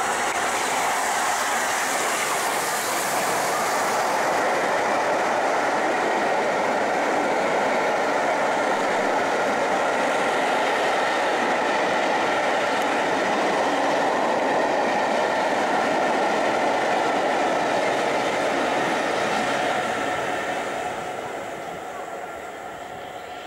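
Steam-hauled passenger train of coaches behind the A4 Pacific 60007 Sir Nigel Gresley rolling past close by, a steady rumble and clatter of coach wheels over the rails, fading away over the last few seconds as the train recedes.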